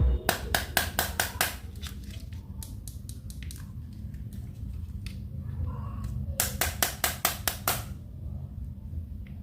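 Two runs of rapid, evenly spaced clicks, about five a second: one just after the start and one about two-thirds of the way in, with a few single clicks between them over a low steady hum.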